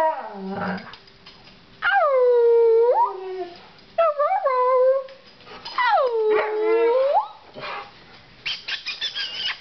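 Husky howling: several drawn-out howls, each sagging in pitch and then rising again, followed near the end by a quick run of short, high yips.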